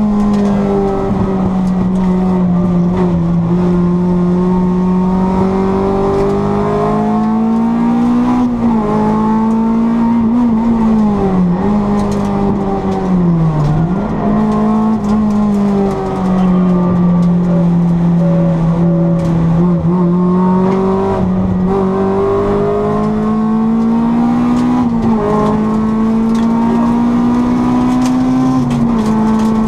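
Honda Civic 1600 four-cylinder engine running hard at high revs on track, its note holding steady with small rises and falls. The pitch drops sharply twice, about eleven and thirteen seconds in, then climbs back up.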